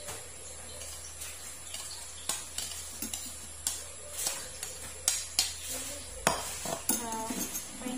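A spoon scraping diced carrots out of a ceramic bowl into a stainless steel pot, with scattered clinks and knocks of spoon, bowl and pot rim.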